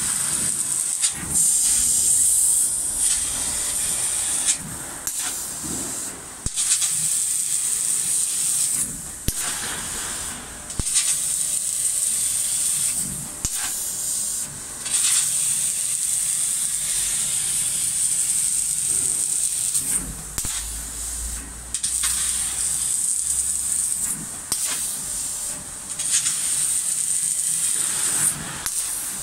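4000 W fiber laser cutter cutting 10 mm metal plate: a loud steady high hiss of the assist gas and the cut at the nozzle. The hiss breaks off briefly and comes back every few seconds.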